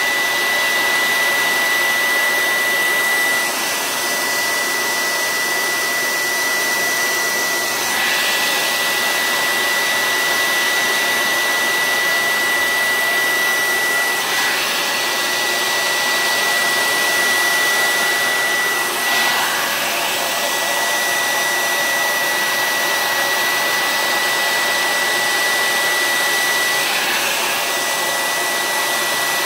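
Handheld hair dryer running steadily, a rush of air with a high whine from its motor. The sound shifts slightly now and then as the dryer is moved about.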